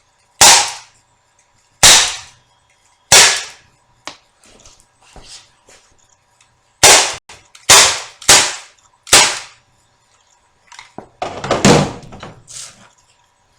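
HK USP 12-gram CO2 airsoft pistol firing seven sharp shots: three about a second and a half apart, then after a pause four more in quicker succession. A longer clatter with a low thud follows near the end.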